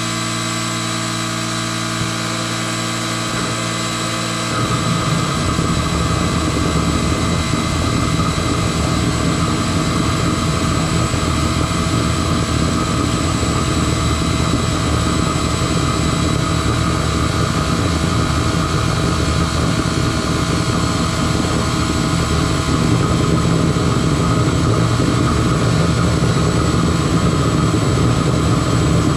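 Homemade diesel-fired burner running with a steady roar over a constant machine hum and whine. About four seconds in the low roar grows much louder, and it rises again a little near the end.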